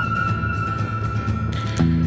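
Background music: a long held high note over a steady bass line, with a short swell of hiss near the end.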